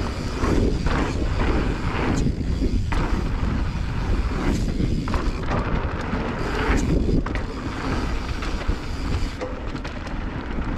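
Mountain bike riding fast down a dusty dirt trail: tyres rolling over dirt with scattered knocks and rattles from the bike, and a heavy low rumble of wind on the microphone.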